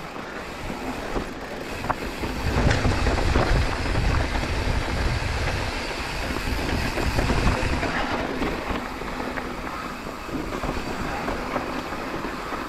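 Mountain bike rolling over a rough, rocky trail: a rattling rumble of tyres, chain and frame with scattered sharp clicks, louder from a couple of seconds in until about two-thirds of the way through.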